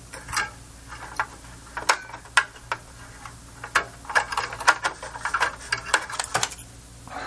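Irregular small clicks and scrapes of hands and a tool working a metal ground tab inside an amplifier chassis, swinging it to the other side. The clicks come thicker in the middle of the stretch.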